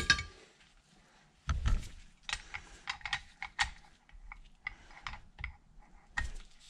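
Irregular metal clicks and clinks as a steel rod is worked in the pinion socket of a three-jaw lathe chuck to free a stiff pinion gear, with a sharp click at the start.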